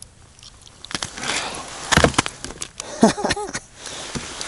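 Handling noise as a large perch is held and turned in gloved hands: rustling of winter clothing and gloves with several sharp clicks and knocks, the sharpest about two seconds in, and a brief squeak-like sound just after three seconds.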